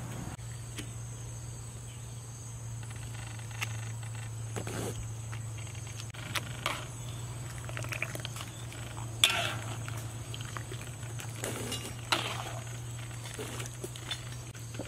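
Metal ladle knocking and clinking against a cooking pot as boiled instant noodle blocks are scooped out, with scattered clinks, the sharpest about nine seconds in. A steady low hum and a faint high whine run underneath.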